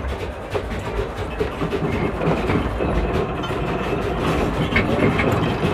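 Earthquake simulator recreating the 1906 San Francisco earthquake: a deep rumble with irregular rattling and clattering, building slowly in loudness.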